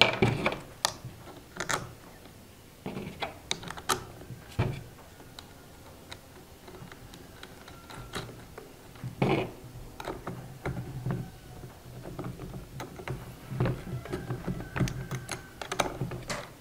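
Irregular small plastic clicks and knocks as plastic blades are fitted by hand into a grass trimmer's cutting head, with a couple of louder knocks about four and a half and nine seconds in.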